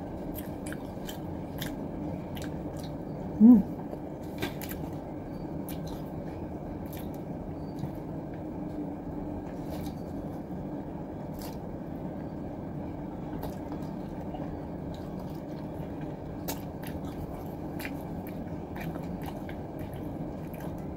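Close-up eating sounds: a person chewing seaweed salad and sushi, with many small sharp mouth clicks over a steady background hum. A brief, loud voiced sound about three and a half seconds in.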